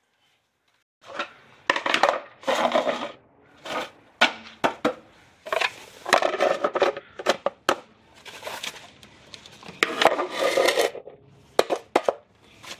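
Wheel chocks being handled and set against a car's rear tyre on a concrete floor: an irregular series of scrapes and clatters.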